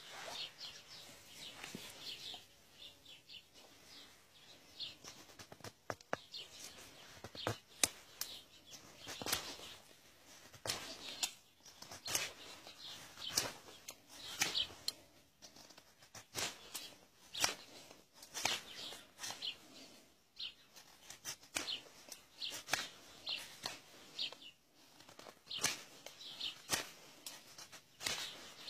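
A small knife blade cutting and scraping the bark and wood of a walnut twig to shape a graft piece. It makes short, irregular scraping strokes, roughly one a second.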